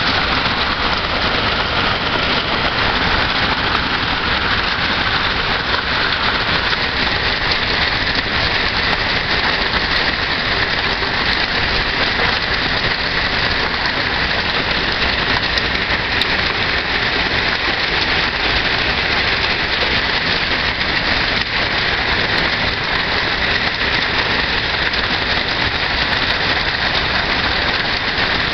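Heavy rain pouring down in a steady, dense hiss that does not let up.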